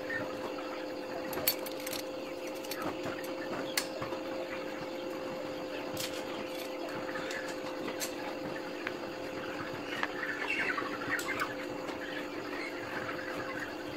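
Sharp, scattered metallic clicks as locking pliers are clamped and worked on a steel-wire frame, over a steady electrical hum. Birds chirp in the background, most busily near the end.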